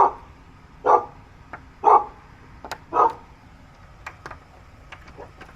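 A dog barking four times, about one bark a second, then falling quiet.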